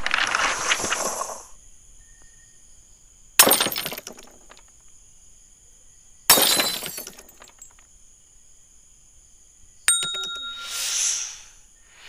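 Stock outro sound effects: a rushing burst at the start, then two sudden shattering crashes about three seconds apart, each dying away. Near the end a sharp click with a brief ring marks the animated subscribe-button press, followed by a swelling whoosh. A faint, steady high whine runs underneath.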